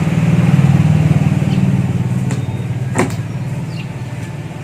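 A motor vehicle's engine running close by, loudest near the start and fading steadily as it moves away, with a single sharp click about three seconds in.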